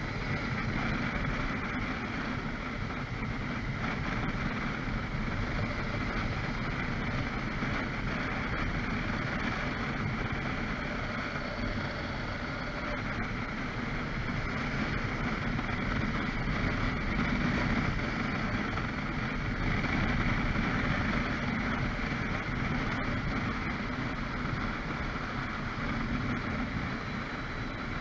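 Motorbike engine idling while stopped, with a steady hum of city traffic around it.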